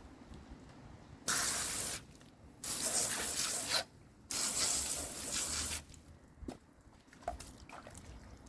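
Water spraying in three short bursts, each starting and stopping sharply.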